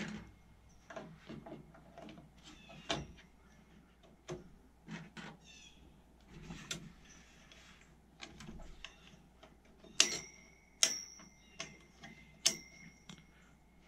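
Small metal computer parts clicking and tapping as a finned heatsink and its retaining clip are fitted onto a desktop motherboard. Near the end come four sharp metallic clicks, each ringing briefly.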